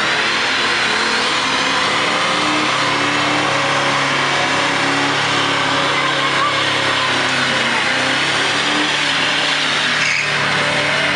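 Car burnout: an engine held at high revs while the rear tyres spin and screech on the asphalt, a loud, unbroken sound.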